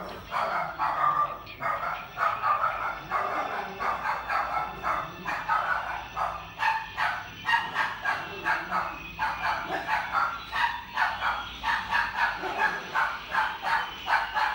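Rapid, repeated animal calls, short sharp yaps about three a second, going on without a break.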